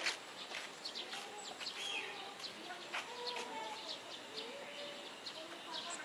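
Small birds chirping and twittering in many quick short notes, with some fainter lower calls underneath and a brief sharp click right at the start.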